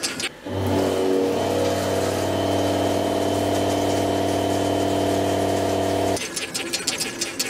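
A CNC face mill cutting across a metal block in a 3 mm-deep pass: a steady machine drone of several layered tones, which starts about half a second in and stops abruptly about six seconds in. Before and after it come quick crackling clicks of metal chips breaking off in turning.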